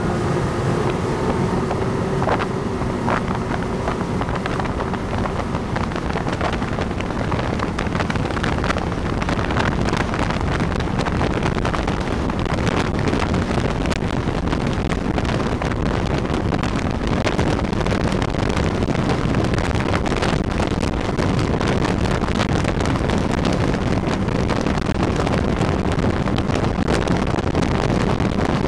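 Motorboat engines running steadily at high speed, with water rushing and wind buffeting the microphone.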